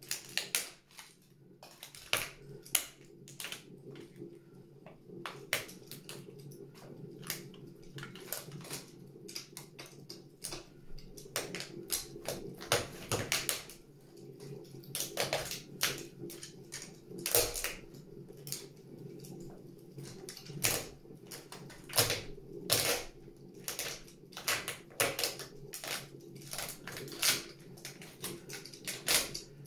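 Plastic toy train carriages cracking, snapping and crunching under stiletto heels: a string of irregular sharp cracks, some in quick clusters.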